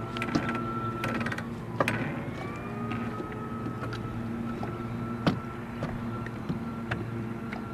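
Electric trolling motor running with a steady hum and a high whine that dips and climbs back about two seconds in as its speed changes. Scattered small knocks of wind-driven waves slapping the boat's hull.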